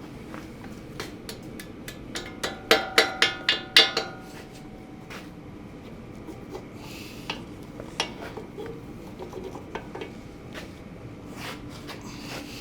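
A quick run of about six hammer blows on ringing steel, about two and a half seconds in, with scattered lighter metal clinks and knocks before and after.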